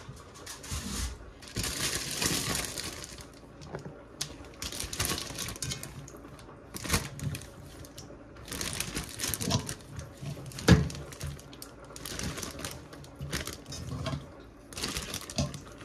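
Plastic zip-top freezer bag crinkling and rustling as raw marinated chicken is handled between the bag and a metal pot, with scattered clinks and one sharp knock of the pot about eleven seconds in.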